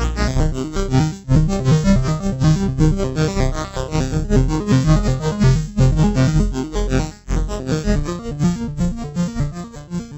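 Electronic synthesizer music with a fast, steady pulse and shifting chords, fading out near the end.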